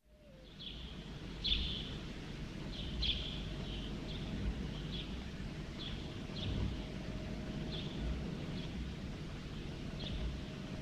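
City ambience fading in: a low steady hum of distant traffic, with a bird giving short high chirps about once a second.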